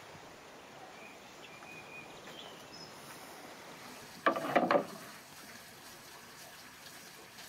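Carved wooden serving platter set down on a wooden tabletop: a short clatter of several knocks, wood on wood, about halfway through.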